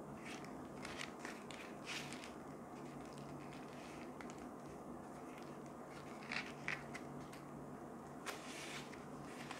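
Clear plastic pouch of silicone drinking straws crinkling faintly as it is handled and turned over, with a few sharper crackles about six seconds in and again near the end, over a steady low hum.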